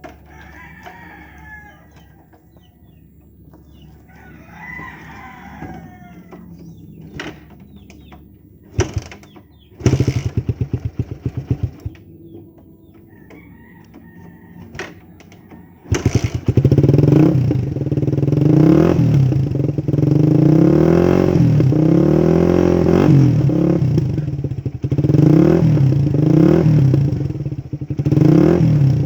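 Motorcycle with an Akrapovic-style 51 mm big-elbow exhaust and a steel-wool-packed dB killer: a short burst of rapid pulses about ten seconds in, then from about sixteen seconds the engine runs loud and is revved up and down repeatedly. A rooster crows twice in the first few seconds.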